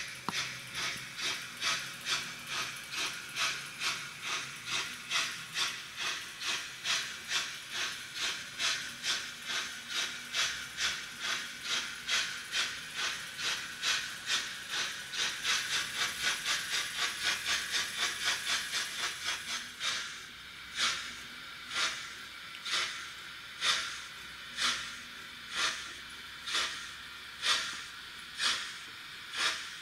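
Steam exhaust chuffing from the sound decoder of a Märklin/Trix BR 96 Mallet model locomotive, played through its small onboard speaker as a run of hissy beats. The beats quicken to about three a second, then about two-thirds of the way through drop to slower, more separate chuffs about a second apart.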